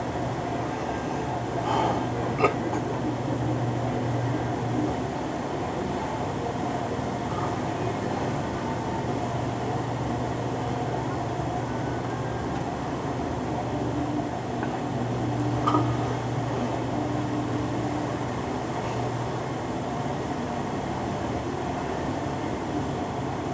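A steady low machine hum, with a few brief clicks about two seconds in and another short sound past the middle.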